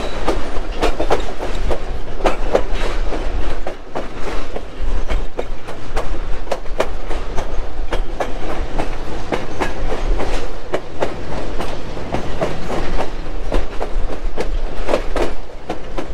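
Lehigh Gorge Scenic Railway passenger coach rolling along the track, its wheels clacking irregularly over rail joints above a steady low rumble.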